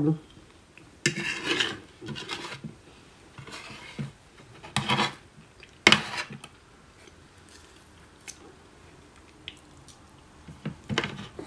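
A fork scraping and clinking on a plate in several short bursts while cutting into flaky puff pastry, with a sharp click about six seconds in.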